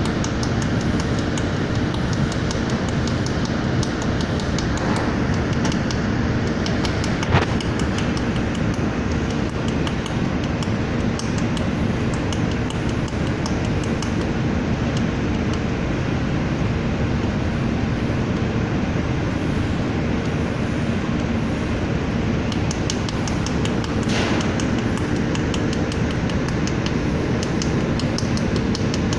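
Jewelry laser welding machine running: a steady hum with a fast, even ticking from the pulsed laser firing on brass, and one sharper click about seven seconds in.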